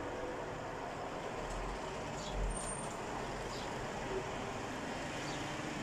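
Steady low background rumble with a few faint soft clicks of a person chewing noodles with her mouth closed.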